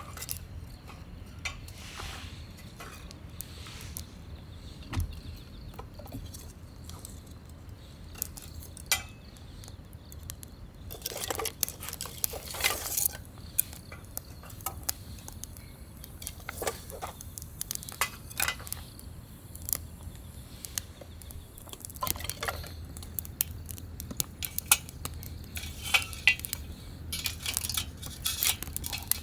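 Metal camp cookware and utensils clinking and clattering as they are handled, in irregular bursts that are busiest about eleven to thirteen seconds in and again near the end, over a low steady hum.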